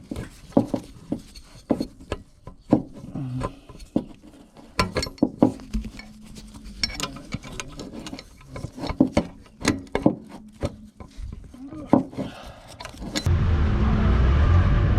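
Irregular metal clicks and clinks of hand tools working on a turbocharger's wastegate fittings. About 13 seconds in, this cuts abruptly to a car engine running with a steady low rumble.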